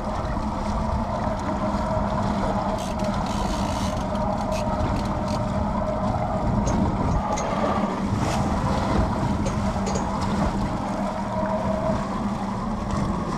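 Motorboat engine running steadily at low speed: an even hum with wind and water noise over it.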